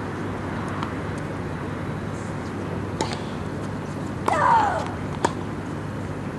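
Outdoor tennis-court ambience with a steady low background hum, broken by a few sharp, single tennis-ball hits. About four seconds in, a short voice call falls in pitch.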